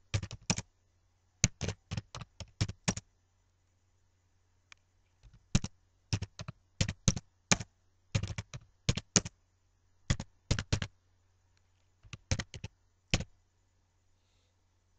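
Computer keyboard typing: quick runs of key clicks in several bursts separated by pauses of a second or two, as a sentence is typed out.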